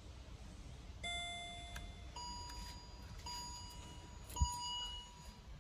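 HSV Clubsport instrument cluster sounding electronic warning chimes with the ignition on, during its start-up system check: one lower tone held about a second, then three higher tones one after another. A dull thump comes about four and a half seconds in.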